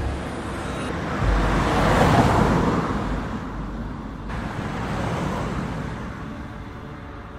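Road traffic: cars passing, a rumble and rush of engines and tyres that swells about two seconds in and then slowly fades away.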